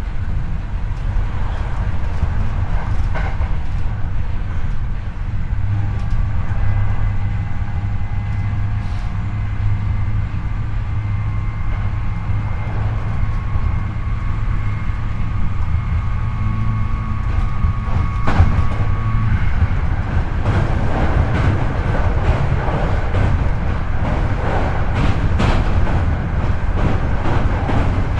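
Hankyu 8300 series electric train running between stations, heard from the floor above a motored bogie: a steady deep rumble of wheels on rail, with a steady whine from the Toyo IGBT-VVVF-driven traction motors and gears for a stretch in the middle. The ride turns rougher with rapid clicks over the rails in the last several seconds.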